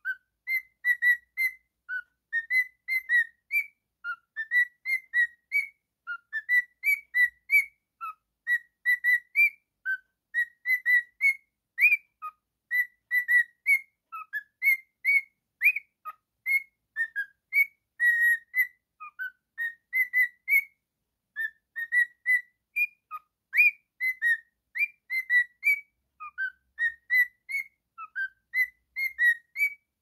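Male cockatiel whistling a song: a long string of short, clear whistled notes with quick slides up and down, sung in repeated phrases with brief pauses between.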